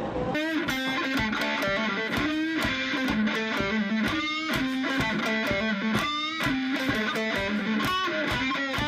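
Guitar music, a fast run of short plucked notes.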